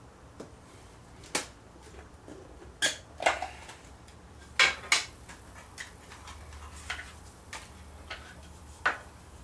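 Scattered metallic clicks and clinks as reloading tools and brass cartridges are handled on a bench, about half a dozen sharp ones at irregular intervals.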